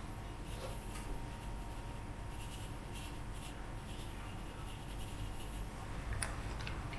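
Faint handling sounds: scattered light taps and rubbing over a low steady hum.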